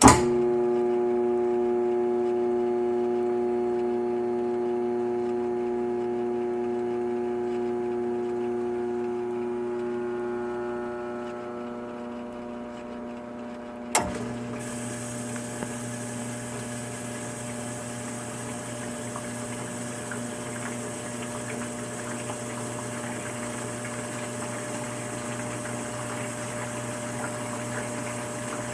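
Dishwasher pump starting with a click and running with a steady hum that slowly fades. About halfway through there is another click, and the pump runs on with water rushing and spraying inside the machine.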